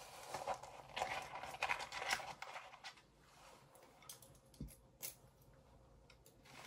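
Faint rustling and light clicks of a small plastic toy vehicle being handled and taken out of its packaging. The sound is busiest over the first three seconds, then quieter, with a couple of sharper clicks later.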